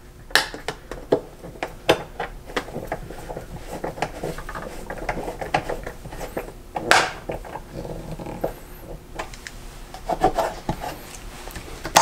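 Fingers rubbing, scraping and clicking against a plastic wall switch plate and its screws, many small clicks and scrapes with a longer, louder scrape about seven seconds in.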